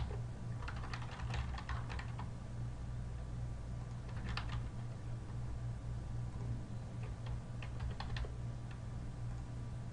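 Typing on a computer keyboard in three short bursts of keystrokes, the first about half a second in, the second near the middle and the third from about seven seconds in, over a steady low hum.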